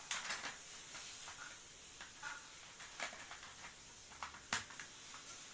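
Small plastic pieces of a pink toy makeup set clicking and tapping as they are handled in their plastic case. There are a few light clicks scattered through, with a sharper one about four and a half seconds in.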